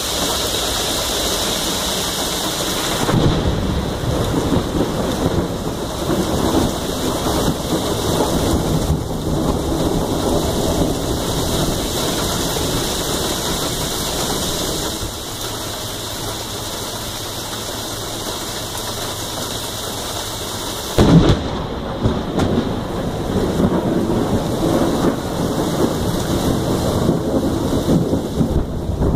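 Steady rain during a thunderstorm, with thunder rumbling from a few seconds in. About 21 seconds in comes a sudden loud crack of thunder, then more rumbling.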